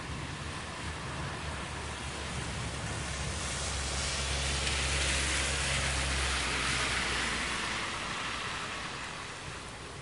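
Steady rain falling, with a car driving past on the wet road: its tyre hiss and low hum swell to a peak about halfway through and fade away near the end.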